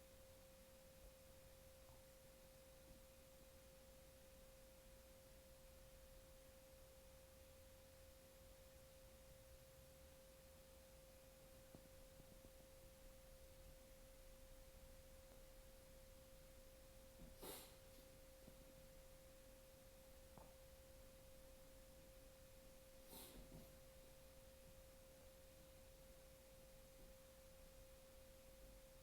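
Near silence with a faint steady tone, and two brief faint noises, one a little past halfway and one about four-fifths of the way through.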